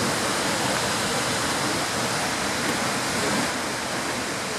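Seljalandsfoss waterfall: falling water making a steady, dense rushing noise.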